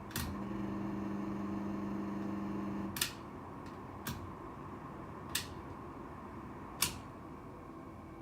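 HVAC unit making an awful noise: a sharp click sets off a steady buzzing hum that stops about three seconds later with another click. Three more sharp, single clicks follow a second or so apart, over the system's steady running noise.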